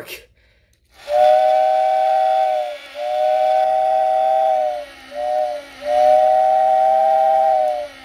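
Tyco model railway steam whistle in its billboard housing, an electric rotor pumping air through two whistle valves to give a two-note chord. It blows four blasts, long, long, short, long, each sagging slightly in pitch as it starts and ends.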